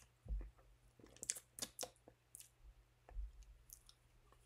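Faint, scattered small clicks and soft taps, bunched together around the middle, with a dull low thump just after the start and another about three seconds in.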